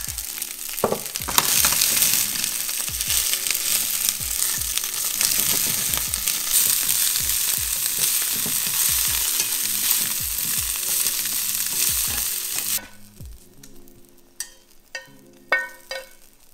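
Broccolini and garlic sizzling steadily in hot oil in a frying pan as they are stirred with wooden chopsticks. The sizzle cuts off abruptly near the end, and a few light clicks and taps follow.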